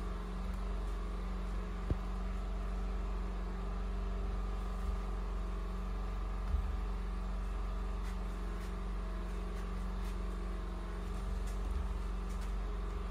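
Steady low machine hum, unchanging throughout, with a faint knock about two seconds in and another a little past the middle.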